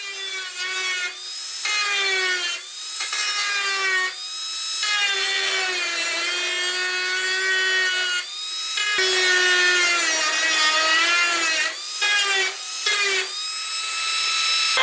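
Angle grinder with a cutoff wheel cutting a circle through galvanized steel sheet. The motor whine wavers and sags in pitch as the wheel bites into the metal, with several brief breaks in the cut.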